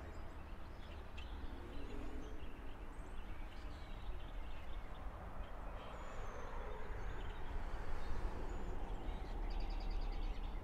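Outdoor ambience: a steady low rumble with faint bird chirps scattered through and a quick run of repeated chirps near the end.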